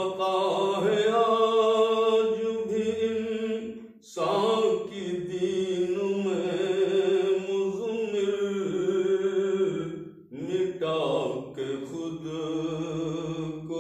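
A man's solo voice reciting a naat unaccompanied, singing long held melodic phrases with two brief pauses, about four and ten seconds in.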